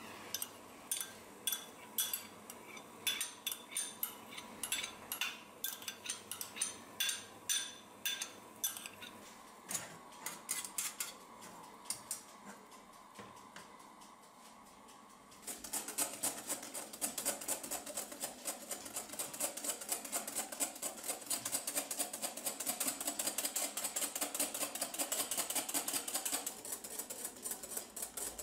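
Clinks of a utensil stirring cream in an aluminium saucepan, irregular at about two a second. Halfway through, a louder, fast, even ticking of a wire whisk beating egg yolks in a glass bowl takes over.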